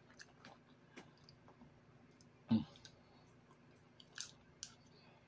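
Close-up mouth sounds of a person eating cheese-covered nacho chips: soft chewing with scattered small clicks and lip smacks, and one short louder mouth sound about halfway through.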